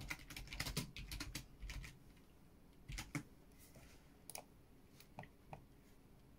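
Computer keyboard typing: a quick run of keystrokes over the first two seconds, then a few scattered clicks.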